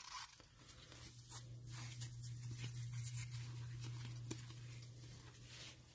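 Faint rustling and sliding of trading cards and cello-pack wrapping being handled, over a low steady hum that swells through the middle.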